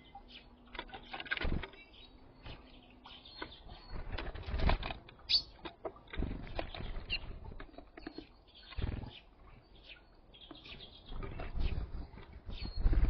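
Small birds at a feeder: wings flapping and irregular knocks and thumps as they land and peck, with a few short chirps.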